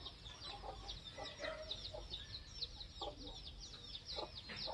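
Chickens clucking a few times over a continuous twitter of rapid, high chirps from small birds.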